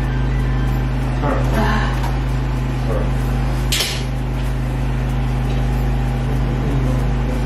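A steady low machine hum with a few fixed tones, unchanging throughout. Faint clinks and murmurs sit under it, and a short sharp hiss comes just before the middle.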